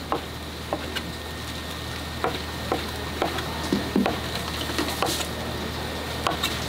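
A chef's knife chopping boiled pork offal on a plastic cutting board: irregular sharp knocks as the blade strikes the board, over a steady low hum.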